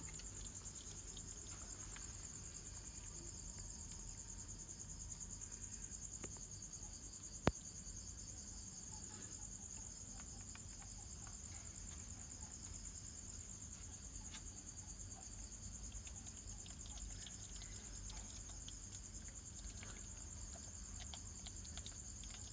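Crickets chirring steadily at night, a high, even trill, with one sharp click about seven and a half seconds in.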